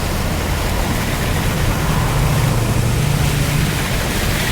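Car driving through floodwater, heard from inside the cabin: a steady rushing hiss of water and tyres over a low engine hum.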